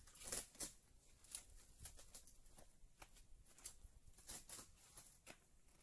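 Faint, scattered crackles and snaps of cured fiberglass being peeled away from a boat mold, several a second, loudest about half a second in and again near the end.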